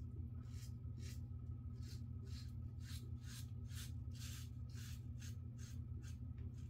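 Yates Winning 2.0 double-edge safety razor scraping through lathered stubble in short, quick strokes, about three a second. A steady low hum sits underneath.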